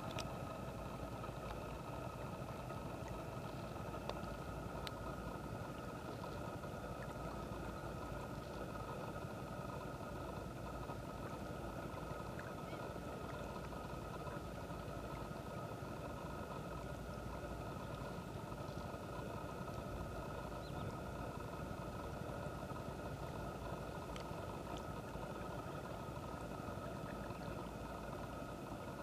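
Steady background noise: a low rumble and hiss with a thin, constant whine above it and a few faint ticks. There are no clear bird calls.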